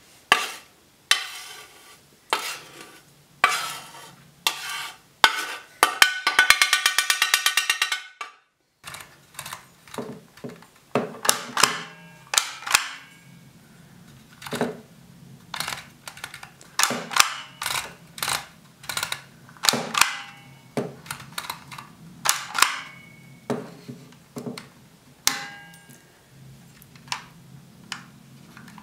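First, sharp clicks and a quick rattling run as dry food is poured from a metal pot through a funnel into a glass jar. Then, after a brief break, a hand-held embossing label maker clacking and snapping, about one or two sharp clicks a second, as its letter dial is turned and the grip squeezed to punch each letter into the plastic tape.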